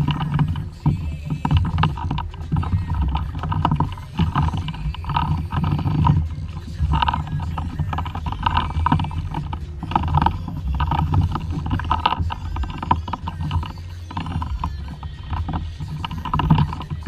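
Water washing against a fishing kayak's hull on the sea, with repeated splashes every second or so over a steady low rumble.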